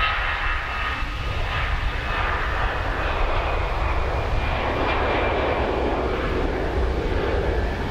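Jet airliner engines at takeoff power: a steady rumble with a faint whine that fades in the first seconds, while a broad rush of engine noise swells about halfway through.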